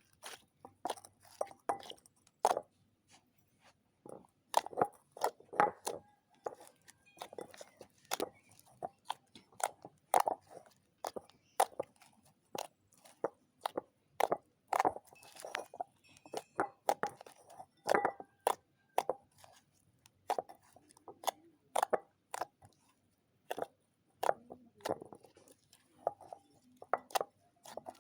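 Slime being worked by hand, making irregular sharp pops and crunchy crackles, several a second.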